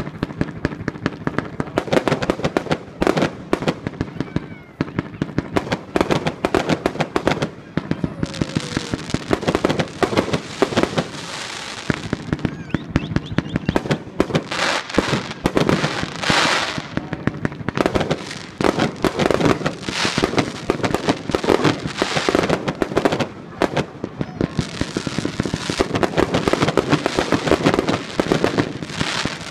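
Dense barrage of fireworks and firecrackers: rapid bangs in quick succession without pause, with stretches of hissing crackle about a third of the way in and again near the end.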